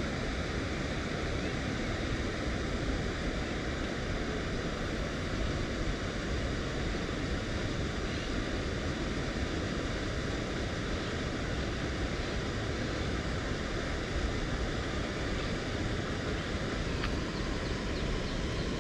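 Steady outdoor rushing noise with no distinct events, holding an even level throughout.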